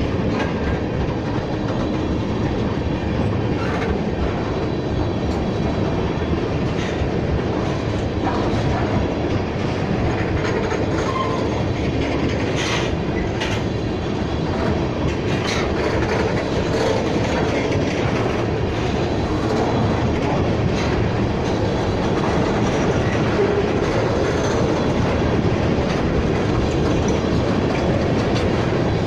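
Empty oil tank cars of a freight train rolling past close by: a steady rumble of steel wheels on rail with clickety-clack over the rail joints. A few sharp metallic clanks stand out, the loudest about 13 seconds in.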